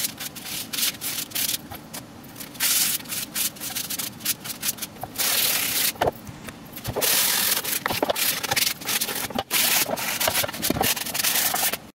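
Plywood edges being hand-sanded with a sanding sponge: a scratchy rasping in quick back-and-forth strokes, with short pauses between runs.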